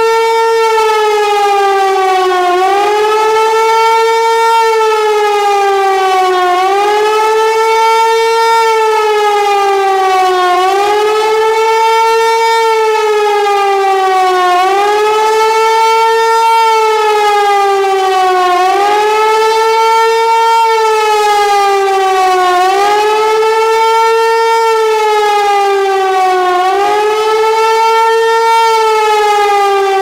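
Hörmann HLS 273 pneumatic high-power siren sounding the German "warning of the population" signal (formerly the air-raid alarm) on a test alarm: a loud, continuous howl whose pitch swells up and sinks back about every four seconds.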